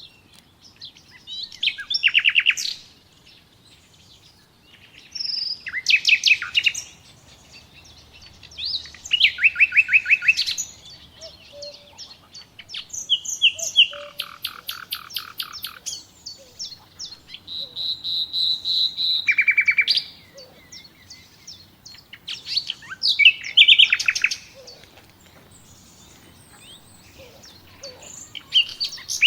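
Songbirds singing: short, varied phrases of whistles and rapid trills come every few seconds, with quieter gaps between.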